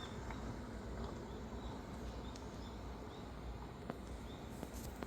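Forest ambience: short, faint bird chirps repeating every half second to a second over a steady low rumble, with a couple of sharp clicks near the end.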